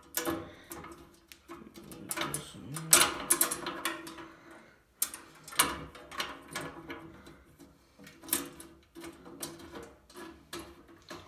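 Metal parts of a wood lathe being handled and fitted by hand: irregular clicks, knocks and rattles, several sharper clacks near the middle.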